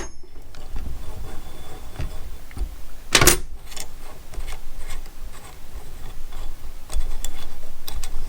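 Handling noise from a hex key and blade on an oscillating multi-tool: small metal clicks, taps and rubbing, with one louder scraping burst about three seconds in.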